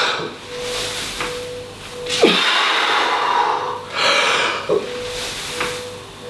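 A man breathing hard under exertion, a forceful breath out and in every couple of seconds through a set of double-kettlebell front squats.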